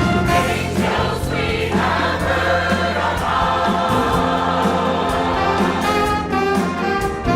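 Choir singing with orchestra accompaniment, many voices holding sustained notes over the instruments.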